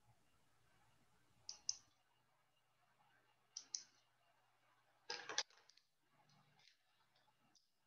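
Near silence broken by a few short, sharp clicks: a quick pair of clicks twice, about two seconds apart, then a louder cluster of clicks about five seconds in, followed by a few fainter ticks.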